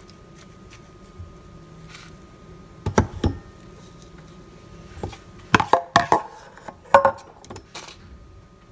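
Metal ice cream scoop knocking and clinking against a stainless mixing bowl and a plastic plate while scooping ice cream: a couple of knocks about three seconds in, then a quick run of clinks with brief ringing just past the middle.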